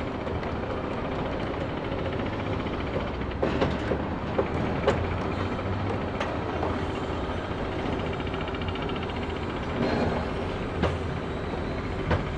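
Construction site sound: machinery runs steadily while about half a dozen sharp knocks and clanks land at irregular intervals.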